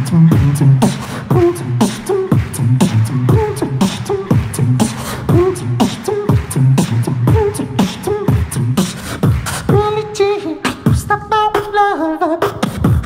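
Beatboxing into a cupped handheld microphone: rapid vocal drum hits over a pulsing low bass line, all made with the voice alone. A wavering pitched vocal melody joins the beat from about ten seconds in.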